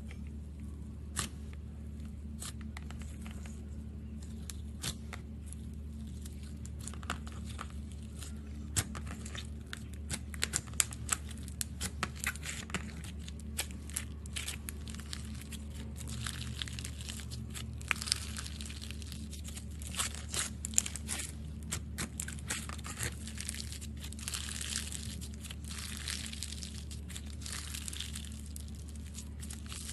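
Slime being worked by hand, giving a long run of sharp crackling pops and clicks that come thickest through the middle.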